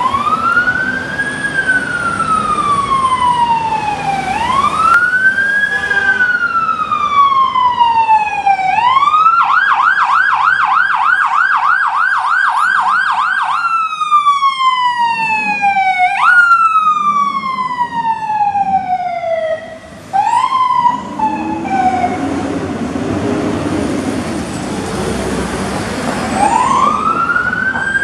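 Fire truck siren sounding a slow rising-and-falling wail, switching for about four seconds in the middle to a fast yelp of about four cycles a second, then back to wail sweeps. A low rumble swells under it shortly before the wail resumes near the end.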